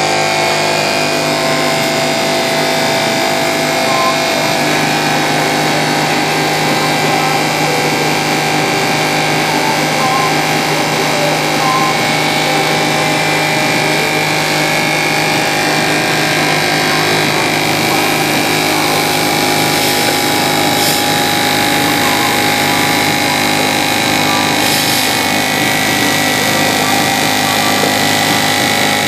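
A small 12-volt DC pump motor running with a steady hum and whine inside an egg washer, while water sprays from its jets onto the brush rollers.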